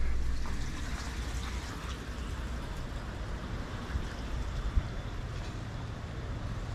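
Background music fading out in the first second, giving way to steady outdoor ambience over open water: an even hiss with a low rumble and a single short knock a little before the five-second mark.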